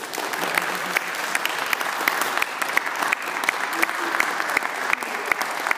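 A small group clapping, with one close clapper's sharp claps standing out about three times a second over the denser applause.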